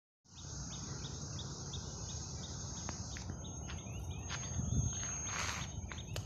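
Outdoor ambience: a steady high-pitched insect drone that stops about three seconds in, over a regular run of short chirps and a low rumble, with a brief hiss a little after five seconds.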